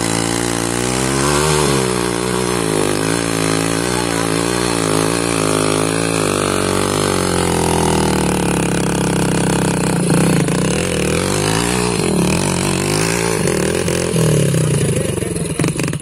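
Hero Splendor motorcycle's single-cylinder four-stroke engine running and being revved up and down, its pitch rising and falling repeatedly, as the rider tries to drive it out of mud where the rear wheel is stuck.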